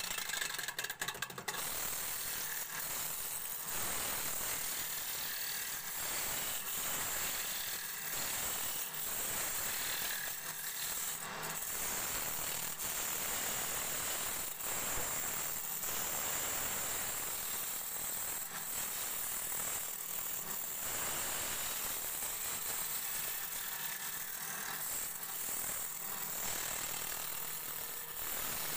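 Wood lathe running while a hand-held turning tool cuts along a spinning cylindrical wooden blank: a steady scraping hiss of the cut over the machine's running noise, with a few sharp clicks about a second in.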